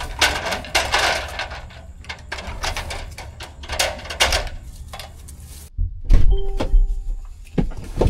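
A run of knocks, clicks and clatters. After an abrupt cut, a few heavier thumps follow, with a short steady tone among them.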